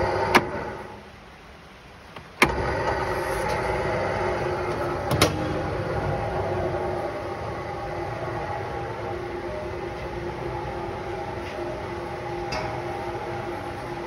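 Desa mobile mixer's motor running with a steady hum; just after a click it winds down and goes quiet, then about two and a half seconds in it switches back on with a sharp click and runs steadily again, as its timer knob is turned.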